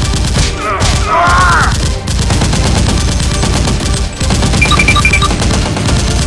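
Rapid automatic gunfire sound effects over background music, with a short gliding whistle about a second in and three quick beeps near the end.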